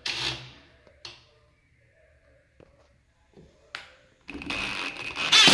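DeWalt cordless impact driver driving a screw up into the closet door's top track, starting about four seconds in and getting louder near the end as it starts hammering. A couple of faint clicks come before it.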